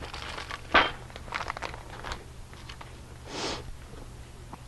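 Paper packaging being handled: short bursts of paper rustling and crinkling, a sharp one about a second in and a longer one near the end, as a butcher-paper package of bacon is picked up and opened.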